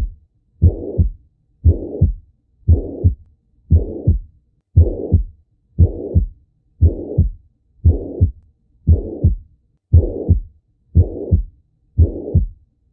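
Heartbeat heard through a stethoscope, about one beat a second. Each beat is a low first heart sound followed by a rough noise that fills the gap up to the second heart sound: a systolic heart murmur.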